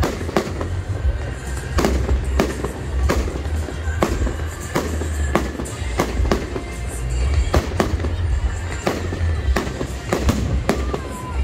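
Fireworks display: aerial shells bursting in a rapid string of sharp bangs, roughly one every half second, with crackle between them over a continuous low rumble.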